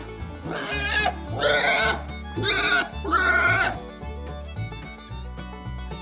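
Pigs squealing: four short, loud squeals in the first four seconds, over background music with a steady beat.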